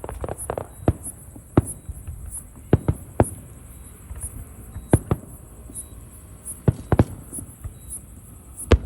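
Fireworks bursting overhead: a rapid cluster of bangs in the first second, then single sharp bangs every second or two, the loudest near the end.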